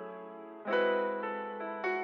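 Background music: soft electric piano chords, each struck and then fading, a new chord about two-thirds of a second in and another near the end.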